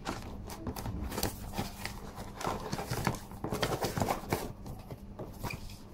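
Cardboard box and paper packaging being opened and handled: rustling and scraping with many irregular light knocks and taps as the camera is lifted out.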